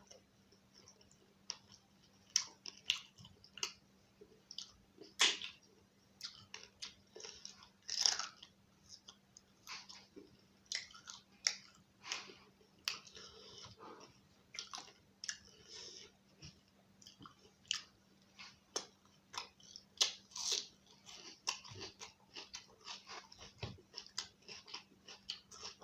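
A person chewing chicken curry and roti close to the microphone: wet chewing and lip-smacking clicks at an uneven pace. A faint steady hum runs underneath.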